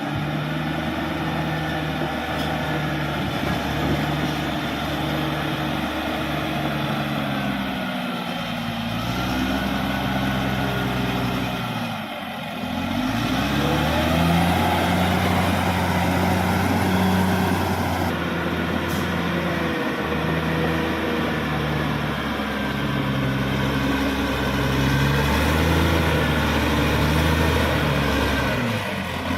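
Cat D6R XL bulldozer's diesel engine working under changing load, its note rising and falling, with a whine that goes up and down as it works. It gets louder about halfway through.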